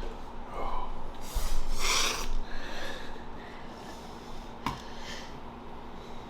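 A person's harsh, rasping breaths and sniffs from the burn of super-hot chili chocolate, loudest in a burst about one to two seconds in, with a single sharp click a little before five seconds.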